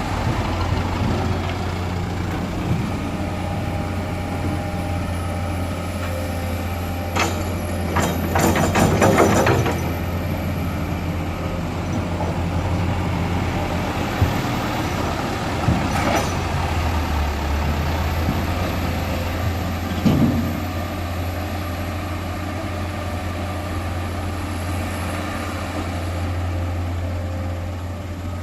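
Heavy diesel earthmoving machinery running with a steady low drone. A burst of clattering comes about seven seconds in and lasts a couple of seconds, and a few single sharp knocks follow later.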